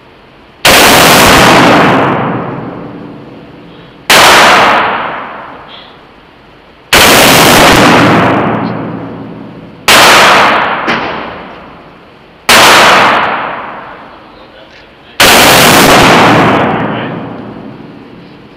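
AK-47 rifle firing six single shots, about one every three seconds, each a sharp blast that rings on and dies away over a couple of seconds in the reverberant booths of an indoor shooting range.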